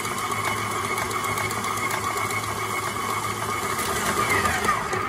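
Stand mixer motor running at a raised speed with a steady whine, its dough hook kneading parotta dough in a stainless steel bowl. Near the end the whine falls in pitch and dies away as the mixer winds down.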